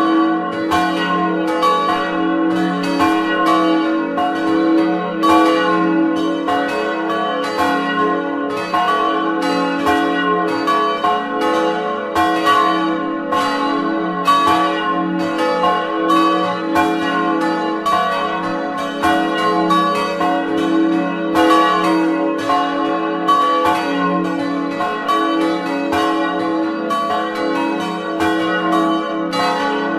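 Full peal of church bells swinging and ringing together, heard close up inside the belfry: the four bells of St. Jakobus, an old large weather bell and three smaller Grassmayr bells. Strikes at different pitches overlap in an uneven pattern several times a second over a steady hum of ringing tones.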